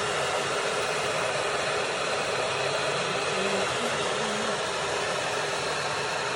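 Chefman 1.8-litre 1500 W electric kettle at a full boil, the water rumbling steadily.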